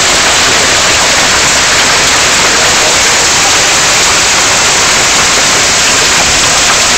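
Heavy hail pelting down on the ground, shrubs and trees, a loud, steady hiss of countless small impacts.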